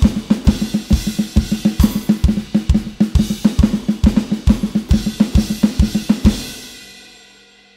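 Electronic drum kit played in a continuous flam triplet pattern moved around the cymbals, over a bass drum about twice a second. The playing stops about six seconds in and the last cymbal rings out.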